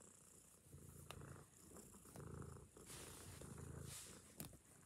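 Domestic cat purring, close up, in a low pulsing rhythm that swells and fades with each breath, with a short click from handling near the end.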